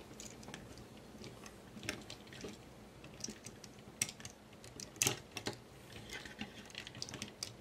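Small plastic clicks and scrapes from a Transformers toy figure being worked by hand as its stuck cannons are pried loose, with a few sharper clicks about two, four and five seconds in.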